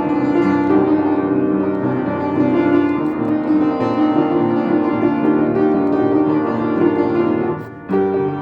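Instrumental music, a full continuous passage with a brief drop in loudness near the end.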